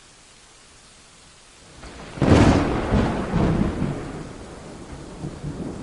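Steady rain hiss, then about two seconds in a thunderclap breaks with a sharp crack and rolls on as a low rumble that slowly fades.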